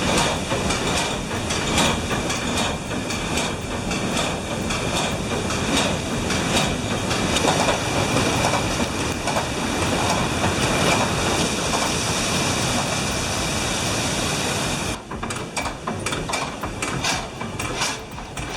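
Water pouring from a flume onto a turning overshot water wheel: a dense, loud rush with rapid knocking and clattering. About 15 seconds in, the rush falls away, leaving scattered knocks.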